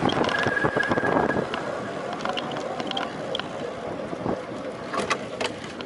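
Wind rushing over the microphone of a time-trial bicycle ridden at race speed, louder in the first second and a half. A thin high tone sounds for about a second near the start, and a few sharp clicks come near the end.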